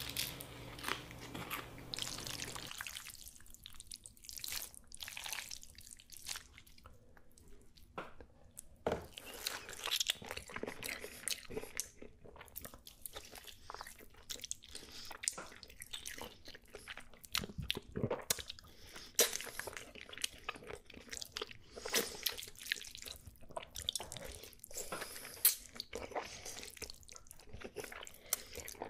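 Close-miked mukbang eating: a person chewing, biting and smacking through fried chicken and spaghetti with wet mouth sounds, as a dense, irregular run of short clicks, squelches and crunches.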